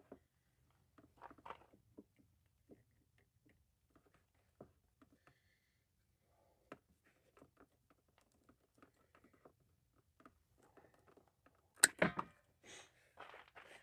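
Cable cutters closing on a 2-gauge battery cable: faint scattered clicks and handling noises, then a sharp snap about twelve seconds in as the blades cut through the copper, followed by a few short handling sounds.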